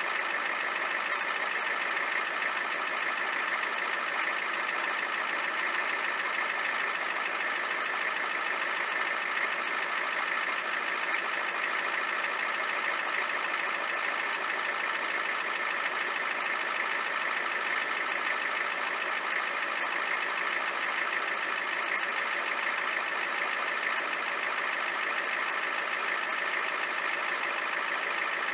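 A 1993 Ford F-350's 7.3-litre IDI diesel engine idling steadily while it warms up after a cold start.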